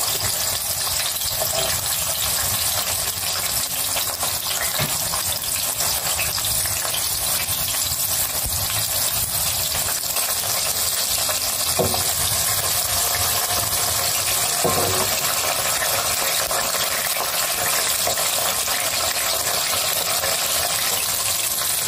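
Whole garlic cloves, shallots, red chillies and candlenuts sizzling steadily in shallow vegetable oil in a frying pan, with two faint clicks midway.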